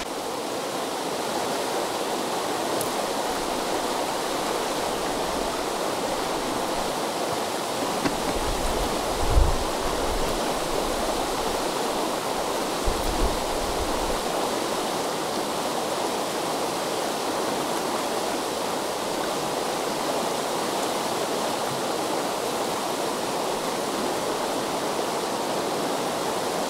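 Fast mountain river water rushing steadily, with a few brief low bumps around the middle.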